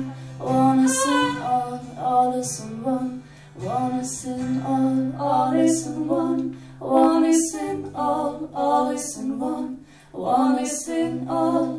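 A woman singing live in short phrases, with clear 's' sounds, over sustained low notes that hold steady beneath the voice.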